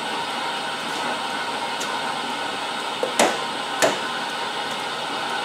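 Two sharp metal knocks about three seconds in, a little over half a second apart, as a hinge is loosened and slid out of a milling-machine vise, with a few fainter clicks. Under them runs a steady machine noise.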